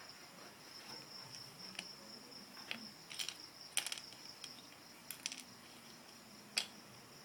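Crickets trilling, a steady high tone, with several light clicks and clatters scattered through, the sharpest one near the end.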